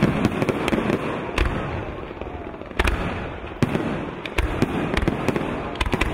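Fireworks display: a rapid, irregular string of sharp bangs and pops from shells and comets launching and bursting, over a continuous rushing noise.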